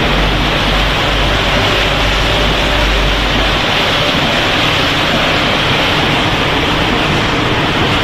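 Loud, steady machinery noise on a snack-food packaging line, with a low rumble underneath that drops out a little under halfway through.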